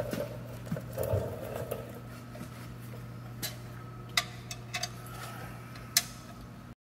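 Sharp metallic clicks and taps from a sheet-metal electrical box being fitted and screwed to a milling machine's column, the loudest about six seconds in, over a steady low shop hum. The sound cuts off just before the end.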